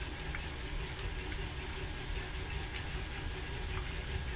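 Twin-engine boat's port marine engine idling steadily, drawing antifreeze through its raw-water pump to winterize the exhaust risers.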